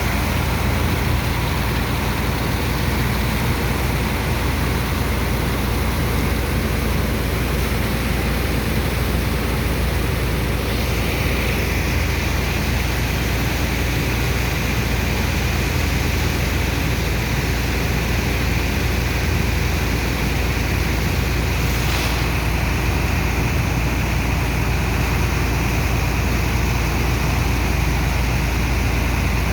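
Sand dredger's engines and sand pump running steadily, a deep rumble under rushing water as the sand is pumped out; a higher hiss joins about a third of the way in.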